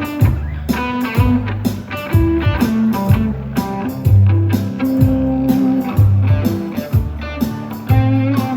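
Live band playing an instrumental intro with electric guitar, bass and drums in a steady beat.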